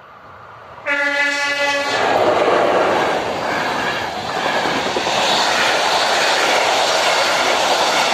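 Passenger train's horn sounding one blast of about a second, about a second in. Then the loud, steady noise of Czech Railways coaches running past close by, with wheels clacking over the rails.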